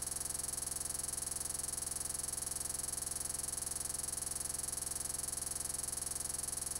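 A steady, unchanging electronic buzz with a bright hiss and a fast, even flutter: digital noise from a glitched, corrupted recording.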